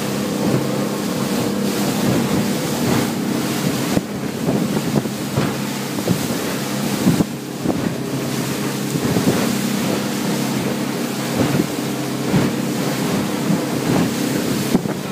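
Speedboat's engine running at speed with a steady drone, under the rush of water along the hull and wind buffeting the microphone, with irregular knocks as the hull hits the waves.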